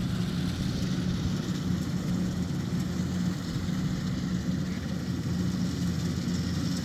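Kubota DC-93 rice combine harvester running steadily as it cuts and threshes standing rice, an even engine drone with a constant low hum.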